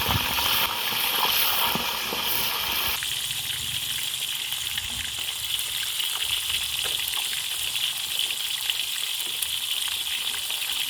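Fish frying in hot coconut cooking oil: a sudden loud sizzle as the fish goes into the oil, easing after about three seconds into a steady hiss.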